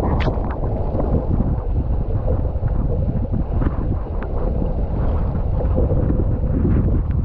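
Wind buffeting the microphone, over water rushing and splashing against a windsurf board under sail.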